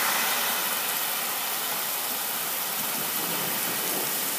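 Heavy rain falling: a steady hiss that eases slightly in the first second.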